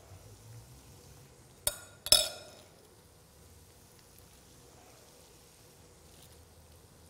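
Two sharp, ringing clinks about half a second apart, a metal fork knocking against the glass mixing bowl, over a faint steady background hiss.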